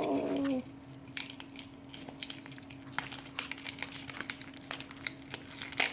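Plastic toy packaging being handled and opened, with scattered light clicks and crinkles.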